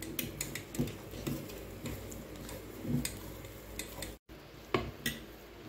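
A wooden stick stirring thick rice-flour and jaggery-syrup dough in a stainless steel bowl, with scattered light knocks and clicks against the bowl. The sound cuts out for an instant about four seconds in.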